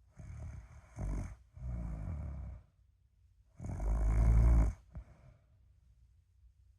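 A sleeping person snoring: rough snores of about a second each, coming two to a breath roughly every three and a half seconds, the loudest about halfway through.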